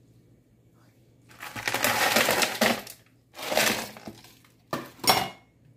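Ice cubes clattering into a plastic blender jar of blended mango, in two rattling bursts and then two sharp knocks near the end.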